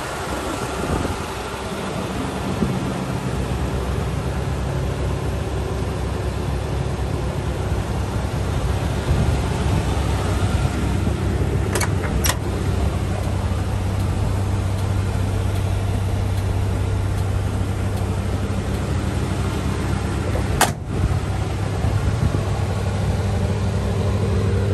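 1981 GMC Sierra 3500 fire truck's engine running steadily, with a couple of sharp clicks about halfway through and another near the end.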